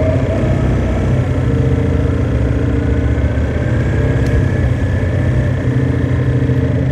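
2009 Orion VII Next Generation hybrid bus running: a steady low diesel engine hum, with a faint high whine from the hybrid drive that rises slowly through the middle.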